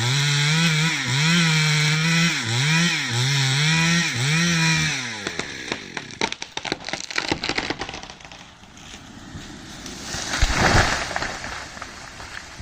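Two-stroke chainsaw cutting a tree, its pitch dipping and recovering as it bites into the wood, until it stops about five seconds in. Snapping and cracking follow, then about ten seconds in a loud rushing crash as the tree comes down.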